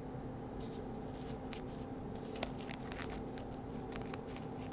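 Trading cards being handled and slid against one another: a run of light scrapes and ticks of card stock over a faint, steady low hum.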